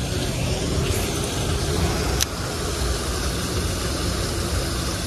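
Steady rushing of water pouring over a small spillway, with a single sharp click about two seconds in.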